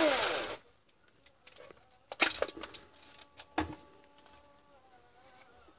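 A cordless drill's motor spins down and stops about half a second in. Several sharp clicks and knocks follow as the drill is set on the bench and its battery pack is handled.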